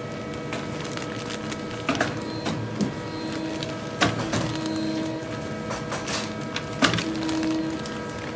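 Shoe-making machine running with a steady hum of several tones. Sharp clicks and knocks come about two, four and seven seconds in as a leather shoe is worked against it, with a short hiss just before the last knock.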